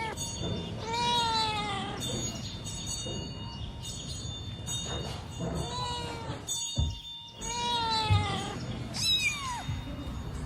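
Domestic cat meowing repeatedly: about four or five drawn-out meows that rise and fall in pitch, with pauses between them.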